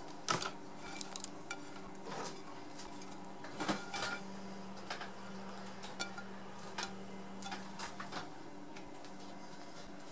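Chopped green onions pushed off a china plate into a glass mixing bowl: scattered light taps and scrapes of plate and fingers against the glass, over a steady low hum.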